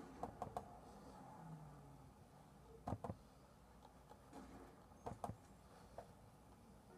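Faint room tone with a few light clicks and taps, mostly in quick pairs: a cluster just after the start, then pairs about three and five seconds in and one more near the end.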